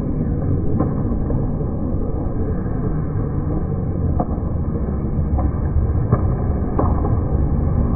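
Ice hockey game sound in an arena: a steady low rumble with about five sharp clicks scattered through it, typical of sticks and puck striking on the ice.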